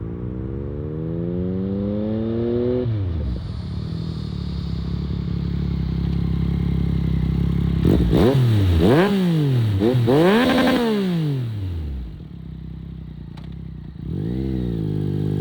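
2021 Yamaha MT-09's 890 cc inline three-cylinder engine through an Akrapovic race exhaust. It accelerates with the pitch rising for about three seconds, then runs steadily. Around the middle it revs up and down sharply several times, then settles lower and rises again near the end.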